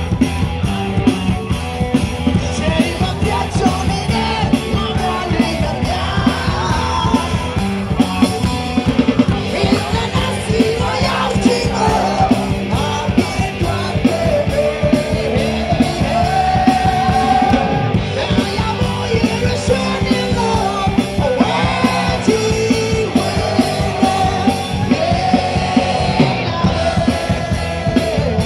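Live rock band with drums and electric guitars playing a song with a singer, heard loud through the PA from inside the crowd, with a steady driving beat.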